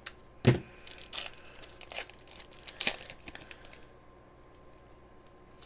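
A foil trading-card pack wrapper being torn open by hand and crinkling, in a few sharp rips, the loudest about half a second in, dying down after about four seconds.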